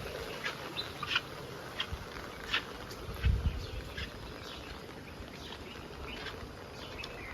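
Scattered short bird chirps over a faint outdoor background, with a brief low rumble about three seconds in.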